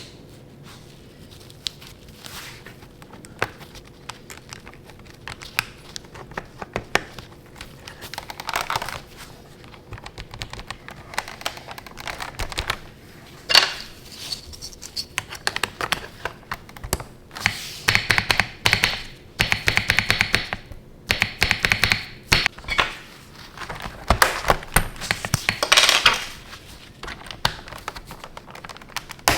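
Akko V3 Cream Blue mechanical keyboard switches and keycaps being worked by hand on a hot-swap keyboard: irregular sharp plastic clicks and snaps with longer scraping rasps, busier in the second half.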